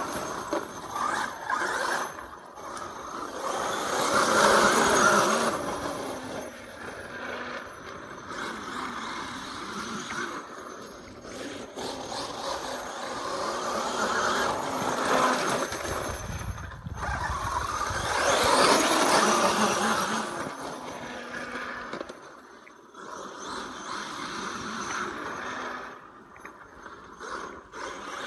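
Brushless-converted Losi 5ive-T 1/5-scale RC truck running on an 8S Castle 2028 motor and XL2 ESC, its motor, drivetrain and tyres on wet grass rising and falling with the throttle. It is loudest in surges about four seconds in and again around eighteen to twenty seconds in.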